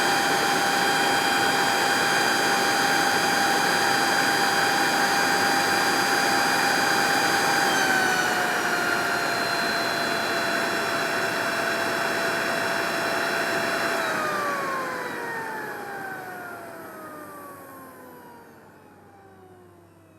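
Leaf blower running with a steady high whine over a rush of air; about eight seconds in the pitch steps down slightly, and about fourteen seconds in it is shut off, its whine sliding down in pitch and fading as the fan spins down.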